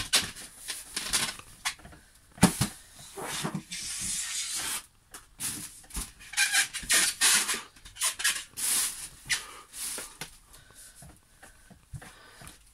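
Inflated latex balloons squeaking and rubbing as they are handled and pressed under a person sitting on them, with one sharp crack about two and a half seconds in.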